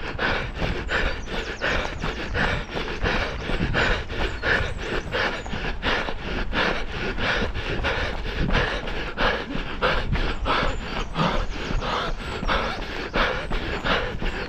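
A runner's footfalls at a steady fast pace, about three strides a second, with heavy panting breaths.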